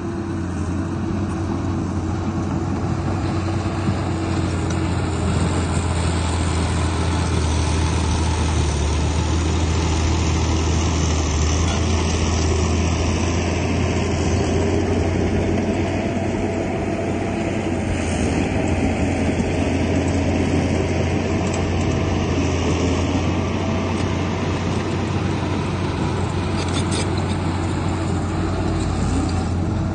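Heavy diesel earthmoving engine running steadily under load, with a constant deep hum.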